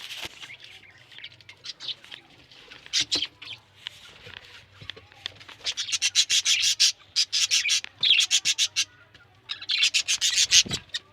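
Budgerigars chirping and chattering in rapid runs of short, high chirps, building to two dense bursts in the second half.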